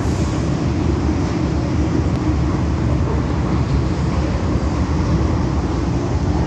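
Metro Cammell electric multiple unit train running along the track, a steady low rumble of wheels and running gear.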